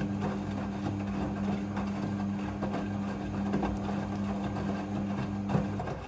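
Midea front-loading washing machine turning wet clothes during a rinse cycle: a steady motor hum with water sloshing and clothes splashing in the drum. It stops abruptly at the very end.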